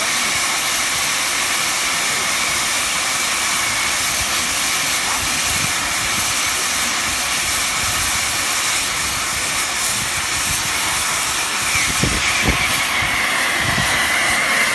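Oxy-fuel flame cutting torch of a CNC cutting machine hissing steadily as it cuts, with a faint high whistle running through it.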